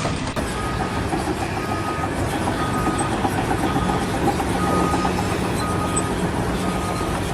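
Steady machinery or vehicle rumble with a faint, short beep repeating about once a second.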